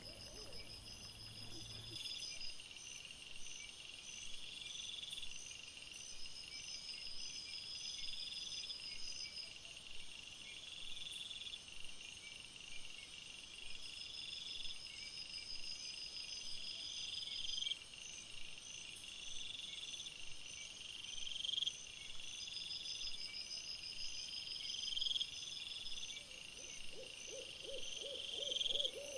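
Night chorus of high-pitched calls: a short rising call repeats about every three to four seconds over steady, rapidly pulsed trilling, typical of crickets and bush-crickets.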